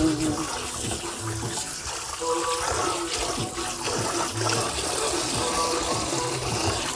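Water running from a kitchen faucet into the sink as beets are rinsed of their dirt, a steady splashing hiss.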